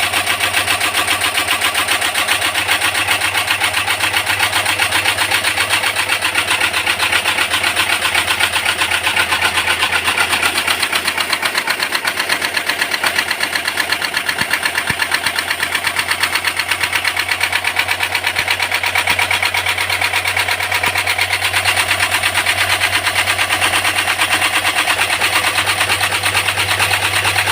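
LG top-load washing machine gearbox running with an abnormal, rapid, steady rattling knock over a low hum: the sign of a faulty gearbox.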